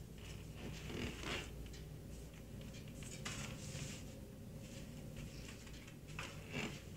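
Faint rustling and scraping of a handheld camera or phone being moved, in a few short swishes over a low steady hum.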